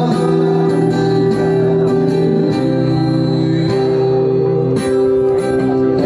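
Acoustic guitar strummed by a street musician, its chords held and changing about every second.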